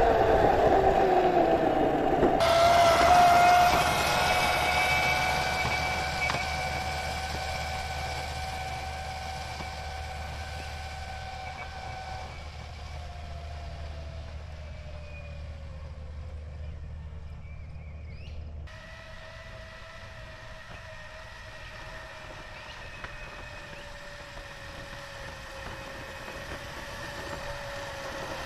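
Electric scooter's hobby brushless motor (E-flite Power 160) whining under power: loud at first with its pitch falling, then a steadier whine with overtones that slowly drops in pitch and fades as the scooter moves away, growing louder again near the end as it comes back.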